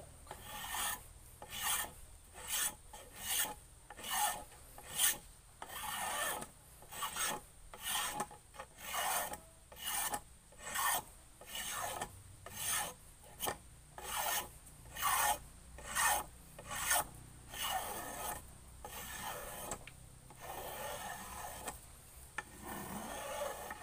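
Wood being scraped by hand: a metal-bladed hand tool drawn along a wooden paddle handle in quick repeated rasping strokes, about two a second, shaping and smoothing it.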